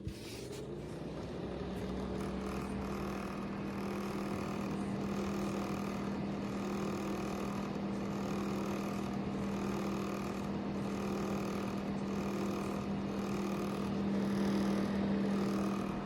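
JNDRO ceramic space heater's fan motor spinning up. Its hum rises in pitch over the first second or two, then runs steadily with a rush of air.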